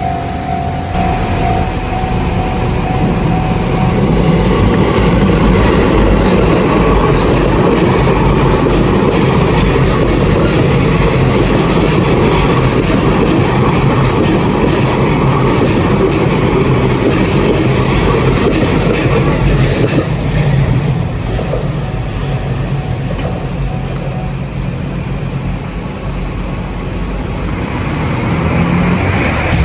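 JR Ome Line train running over a level crossing: a long, loud, steady rumble of wheels on rails that eases about twenty seconds in and builds again near the end.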